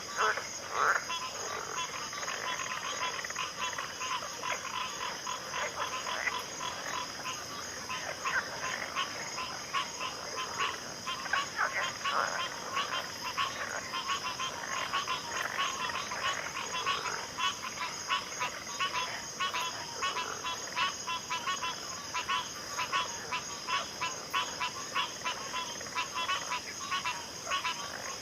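A chorus of many frogs calling at once: dense, overlapping short croaks and clicks, with a steady high-pitched drone beneath.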